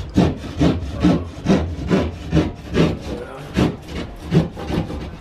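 Small hand saw cutting through wall panelling, a steady back-and-forth rasp of about two strokes a second.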